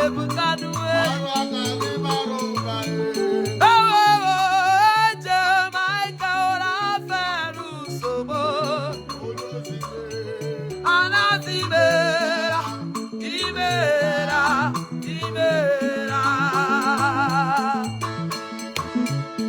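Upbeat praise-band music: a bouncing, repeating bass line under a lead melody that wavers with vibrato.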